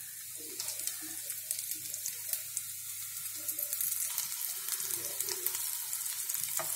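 Semolina-coated vegetable cutlets shallow-frying in oil in a nonstick kadhai over a low flame: a steady sizzle with many small crackles.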